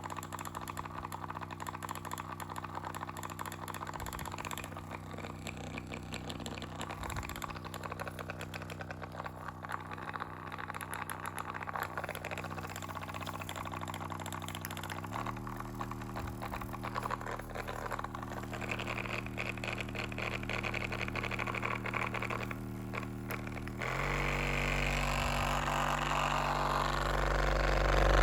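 RecoverFun Mini running with a steady motor hum and a fast rattling noise over it. The hum steps up in pitch twice, about halfway through and again near the end, and gets louder each time.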